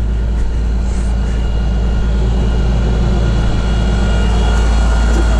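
John Deere 8520 tractor's six-cylinder diesel engine running steadily with a constant low drone.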